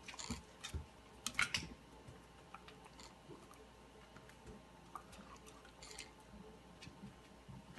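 A dog's mouth sounds: faint licking and lip-smacking with scattered small clicks, and a couple of louder short scuffs about a second and a half in.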